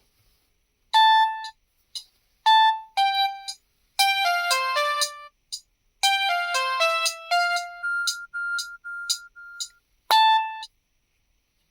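Samsung SGH-CC01 mobile phone ringing for an incoming call: a bell-like ringtone melody of single notes and quick runs of notes, then a string of about five short repeated notes on one pitch and a final note.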